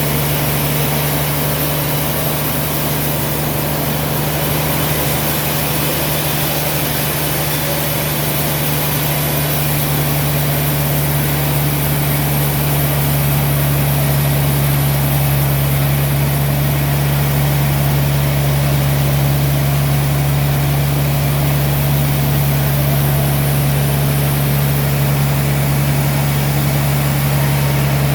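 Sawmill machinery running with a steady, unchanging low hum.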